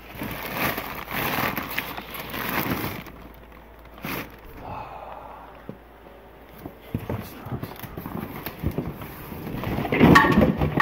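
Black plastic trash bag rustling and crinkling as items are rummaged through, then a louder cluster of knocks and scrapes near the end as cardboard boxes are shifted.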